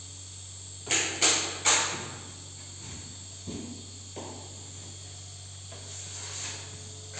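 Three sharp knocks in quick succession about a second in, then a few fainter knocks, over a steady low hum and a thin high whine.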